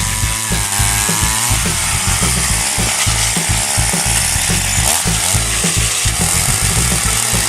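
Small petrol engine running and revving up and down, its pitch rising and falling several times, over background music with a steady low beat.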